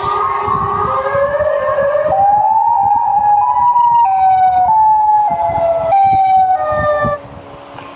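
EAS-style emergency alert alarm tones, siren-like: a rising glide, then a tone that climbs and steps down in pitch with a second tone above it, stopping suddenly about seven seconds in.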